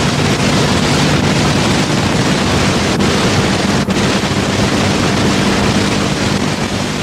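A loud, steady rushing noise with no speech or clear events, and a faint low hum under it.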